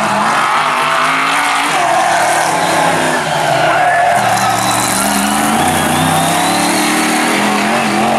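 BriSCA F1 stock car's V8 engine revving hard through a bend, its pitch climbing and dipping several times, with tyres squealing as the car slides.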